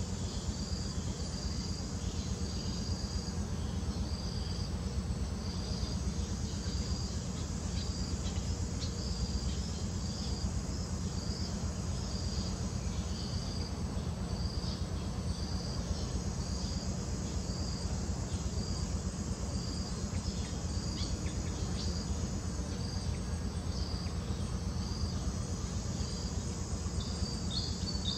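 Insects calling outdoors: short high chirps repeating about once a second over a steady low rumble, with a few quicker falling chirps near the end.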